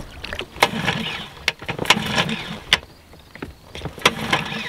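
Evinrude 6 hp outboard being pull-started: about three yanks on the recoil starter, each turning the engine over briefly without it catching. The owner suspects fuel is not getting through after the motor has sat for a while.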